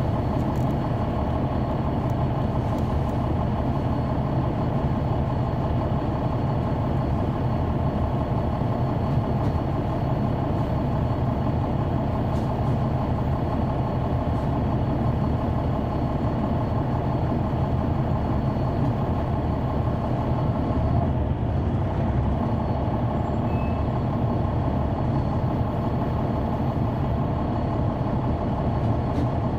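Caterpillar C9 ACERT diesel engine of a 2004 Neoplan AN459 articulated transit bus running steadily, heard from inside the cabin, with no marked rise or fall in pitch.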